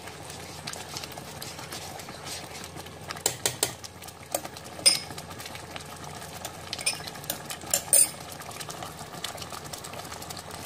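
Thick spinach gravy simmering and bubbling in a pot, stirred with a metal spoon at first, with a handful of sharp clicks and pops in the middle.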